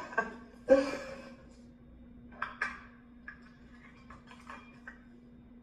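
A steady low hum with a few short clicks and small taps scattered over it, and a louder short knock about a second in.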